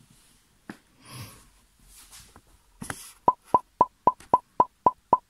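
A fast, very even series of identical short plopping pops, about four a second, beginning a little past the three-second mark, after a few soft rustles and a click.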